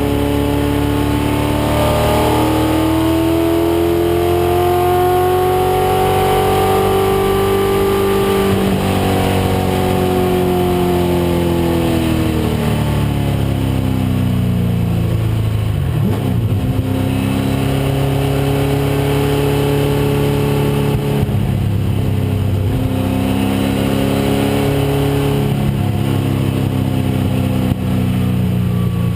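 1996 Ford Mustang race car's engine at racing speed. It climbs in pitch under power for the first several seconds, then winds down through the middle as the car slows. Later it pulls again at fairly steady revs with a few stepped changes in pitch.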